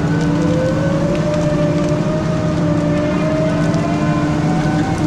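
Weiler S340 skidder's diesel engine running steadily while the machine drags a grapple load of logs, with a whine that rises slowly in pitch and drops back near the end.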